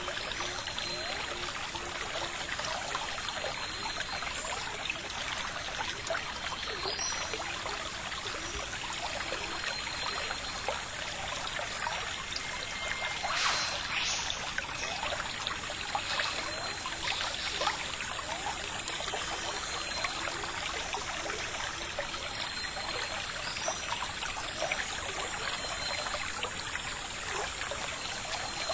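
Steady trickling of running water, like a small stream, with a short louder burst of noise about halfway through.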